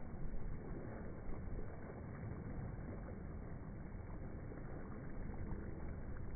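Steady low rumbling noise of wind on a phone microphone outdoors, with no distinct events standing out.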